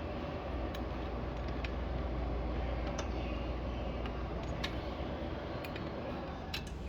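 Car engine running steadily with a low hum, with scattered light ticks and clicks over it.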